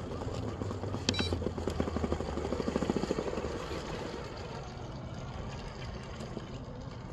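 RC crawler truck's 38-turn brushed motor and geared drivetrain running under load as it climbs over rocks. A sharp click comes about a second in. A fast chatter builds to its loudest two to three seconds in, then eases off.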